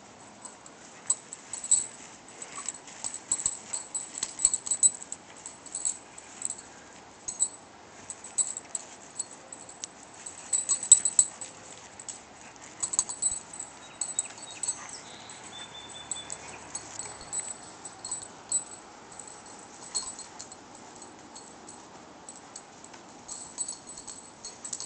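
Dog at rough play: scattered sharp clicks, taps and jingles as a Doberman lunges and snaps at a wooden board, with a louder flurry about eleven seconds in.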